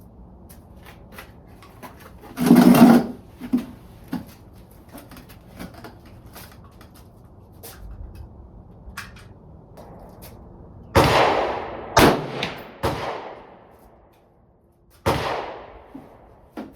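Five gunshots, each with a ringing tail. One comes about two and a half seconds in, three follow in quick succession around eleven to thirteen seconds, and a last one comes about fifteen seconds in.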